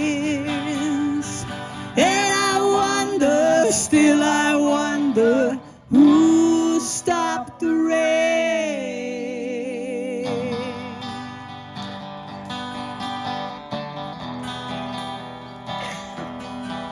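Live singing with guitar accompaniment: voices, a woman's among them, hold long notes. About nine seconds in, a last held note with vibrato fades, and the guitar plays on alone.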